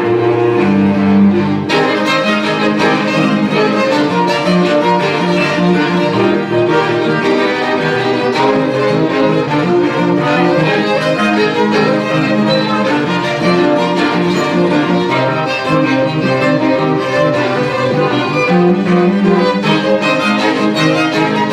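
String quartet (two violins, viola and cello) playing live. Held low notes open, then about two seconds in the upper strings enter and all four play fast, repeated figures.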